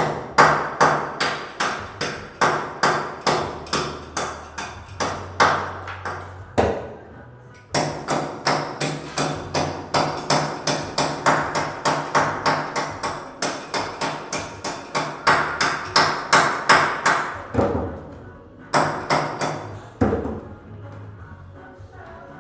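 A hammer striking repeatedly at a fast, even pace, about three blows a second, in long runs broken by short pauses about seven and eighteen seconds in. This is work on the wall opening being fitted for an exhaust fan.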